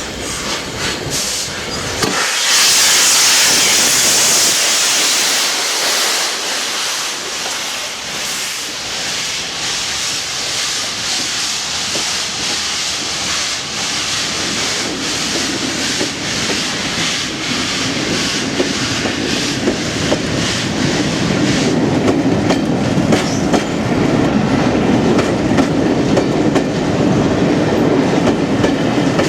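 A steam-hauled Pullman train moving out under LNER A1 Pacific No. 60163 Tornado, with its wheels clicking over rail joints. A loud hiss comes in about two seconds in and lasts a few seconds. The rumble of the running train grows heavier in the second half.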